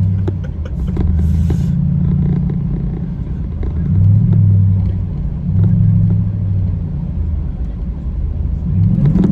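Car engine and road rumble heard from inside the cabin while accelerating, swelling louder twice in the middle and rising in pitch near the end as the throttle is pressed.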